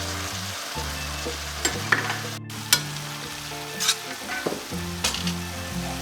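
Oil sizzling in a frying pan as the food is stirred, with sharp clicks of a utensil against the pan every second or so.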